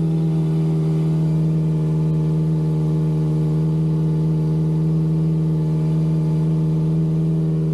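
Kawasaki ZX-25R's 249 cc inline-four engine idling steadily through an aftermarket slip-on exhaust, fitted for a sound test.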